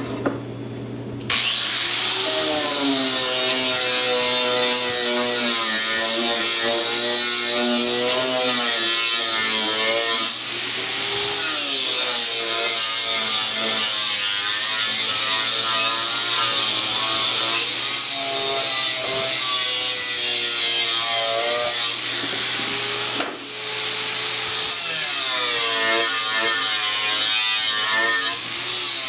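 Electric angle grinder with a flap disc starting about a second in and running on, sanding a steel strip clean to prepare it for welding. Its whine slides up and down in pitch as it works, with two brief dips.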